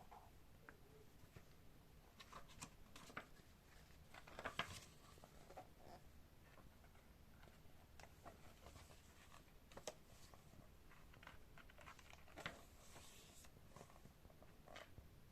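Near silence with faint rustles and scattered light clicks, a few louder ones, from a hardback picture book being handled and its pages turned.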